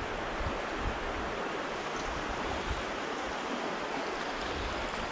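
Steady rush of a flowing stream, with some low wind rumble on the microphone in the first second or so.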